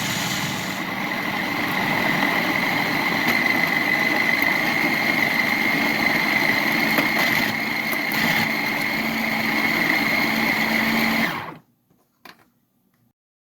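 Electric blender motor running steadily with a high whine as it blends soaked fava beans, egg and green chili into a paste. It cuts off suddenly about eleven seconds in, followed by a faint click.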